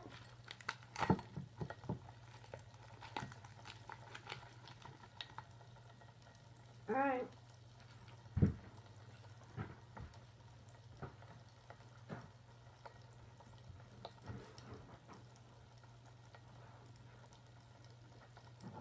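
Flat soda in a glass fizzing and crackling with scattered small pops as Warheads sour candy goes into it, with a single thump about eight seconds in.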